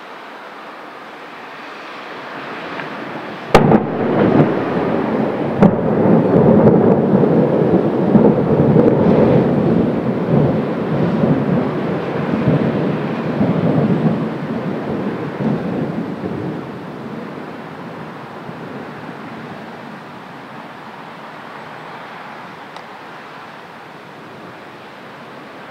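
Thunder: a sharp crack about three and a half seconds in and a second, smaller crack about two seconds later, then a loud rolling rumble that dies away over the next ten seconds or so, leaving a steady background hiss.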